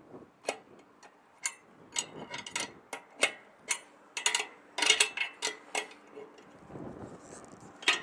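Ratchet wrench clicking in short, irregular runs while the bolts of a microwave dish antenna's mount are tightened down to lock in its alignment.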